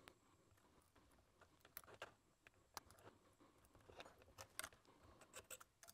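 Near silence, broken by a scatter of faint, short clicks and taps: metal tweezers and tiny screws knocking against the internals of a Canon EF 100-400mm lens as it is taken apart.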